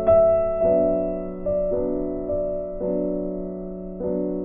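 Background piano music: slow, soft notes struck about every half second and left to ring.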